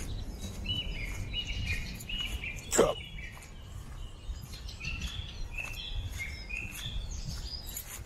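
Small songbirds chirping and calling in short, repeated high notes over a steady low rumble. About three seconds in comes one brief, loud sound that falls sharply in pitch.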